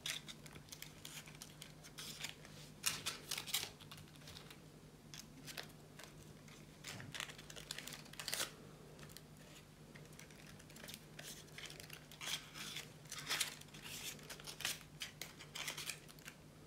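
Faint, irregular rustling and crinkling of coffee-filter paper leaves and floral stem tape being handled and wrapped around wire stems.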